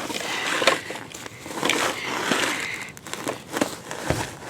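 Steel toy front loader's bucket scraping and scooping up a load of loose dirt and wood chips, crunching and crackling in irregular bursts with a few sharp clicks near the end.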